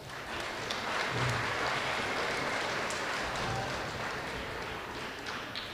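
Audience applauding: a steady patter of clapping that slowly fades near the end.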